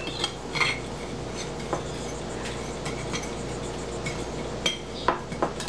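A fork stirring whole wheat flour on a plate, the metal tines giving a few light clicks against the plate, over a steady background hum.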